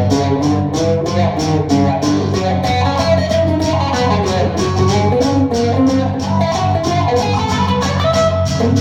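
Live acoustic band playing an instrumental break: guitars strummed in a steady rhythm, with a melody line over a bass part.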